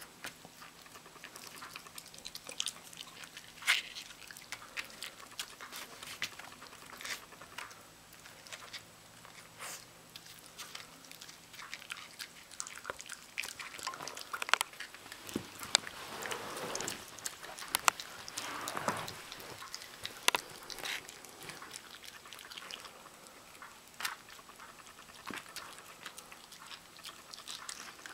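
Miniature pinscher gnawing a piece of raw chicken: irregular wet clicks and crunches of chewing, busiest about halfway through.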